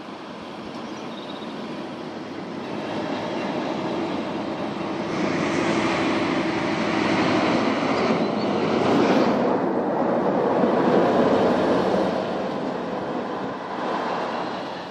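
Class 60 diesel locomotive's Mirrlees eight-cylinder engine running as the locomotive moves slowly along the track, growing louder to a peak about two-thirds of the way through, then easing off.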